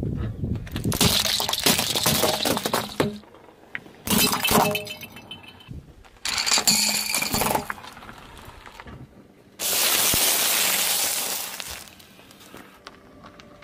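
A car tyre crushing small objects one after another, in several separate bouts of cracking and crunching: plastic puzzle cubes breaking apart, coloured pencils snapping, and a wrapped wafer bar being flattened.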